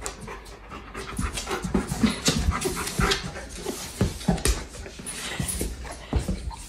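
Bernese mountain dog panting quickly and irregularly during rough play, with a few soft bumps.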